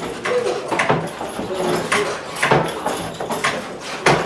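Large hand-pumped leather forge bellows being worked by its overhead lever, creaking and knocking with each stroke at an uneven pace of about one to two strokes a second.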